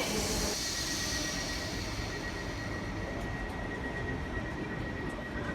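Electric train moving at the platform: a high hiss that fades away within the first second or so, then a steady high-pitched whine over a constant low rumble.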